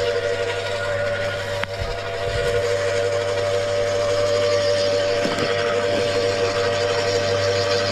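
Wood chipper running with a steady high whine over a low hum, with a single sharp knock about one and a half seconds in.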